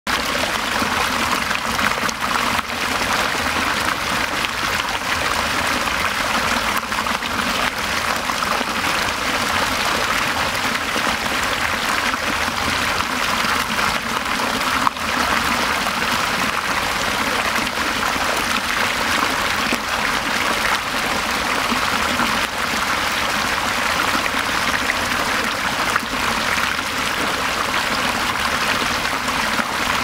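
Shallow stream water pouring over a rock lip and splashing into a foamy pool among stones: a steady rush of running water, with one short click about halfway through.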